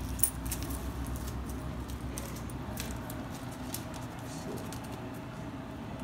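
Scattered light clicks and rattles of gumballs and a plastic bag being handled at the open globe of a gumball machine, with one sharp click about a quarter second in, over a low steady hum.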